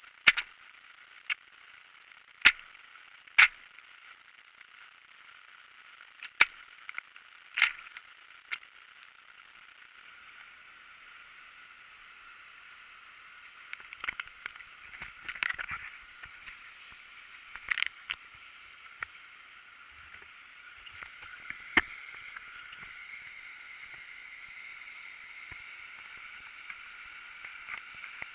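Steady hiss of water rushing over a river waterfall, growing a little louder near the end, with sharp clicks or knocks scattered through it.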